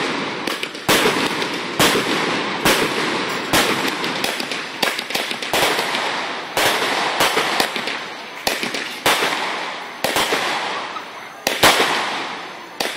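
A fireworks display going off in quick succession: sharp bangs about once or twice a second, each trailing off into crackling as rockets rise and burst into sparks overhead.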